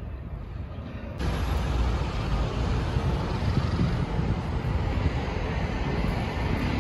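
Steady city street noise with a low traffic rumble, stepping up suddenly in loudness about a second in.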